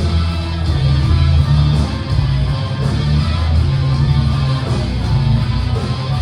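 Rock music played on guitars with a heavy bass line, steady and loud.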